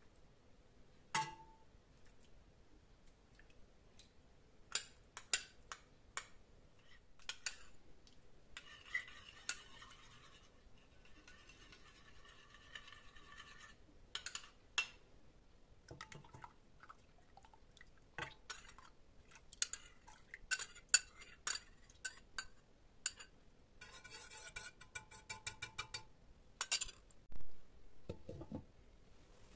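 Spoon clinking and scraping against a stainless-steel pot while yogurt starter is stirred into milk. There are scattered single clinks and two spells of quick, rapid stirring strokes, about a third of the way in and again near the end. Just before the end the pot's glass lid is set down on it with a louder knock.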